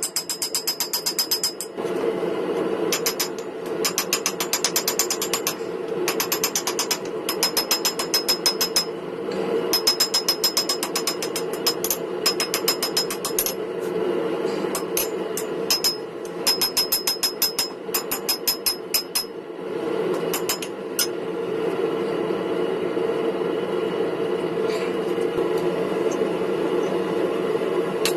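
Hammer striking hot coil-spring steel on an anvil in fast runs of ringing blows, several seconds each with short pauses between, as the nibs of a pair of wolf jaw tongs are forged. The runs stop about 19 seconds in, with a few lone strikes after, over a steady hum.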